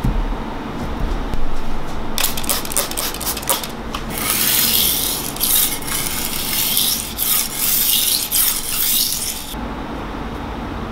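Misono kitchen knife's steel blade being drawn across a whetstone. A few separate short scrapes start about two seconds in, then a fast run of back-and-forth grinding strokes lasts about five seconds and stops shortly before the end.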